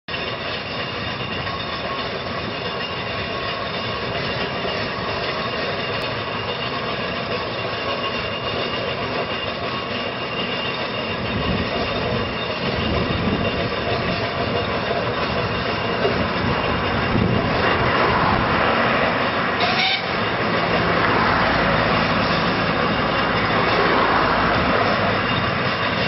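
Aveling & Porter compound steam road roller running: a steady mechanical clatter and hiss that grows louder about halfway through, with a brief dip shortly before the end.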